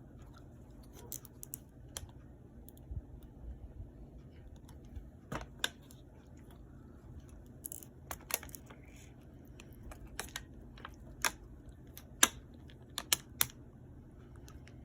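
Irregular sharp clicks and taps from a plastic water bottle with a straw pushed into it, about a dozen spread out, the loudest about twelve seconds in.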